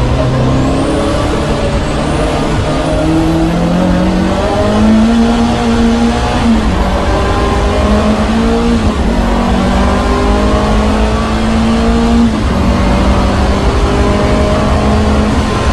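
Lancia Delta HF Integrale's turbocharged four-cylinder engine at full throttle, heard from inside the car. The revs climb and drop back at several upshifts, with a high whine rising and falling along with them.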